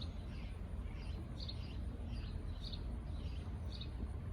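Faint, short, high bird chirps about twice a second, over a steady low background rumble.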